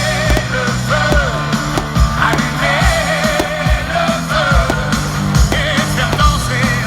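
Loud music with a wavering melody over steady bass notes, with sharp bangs scattered through it.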